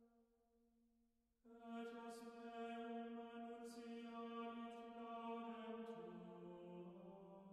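Slow background music of long held notes. It pauses briefly, comes back about a second and a half in, and moves to a lower note near the end.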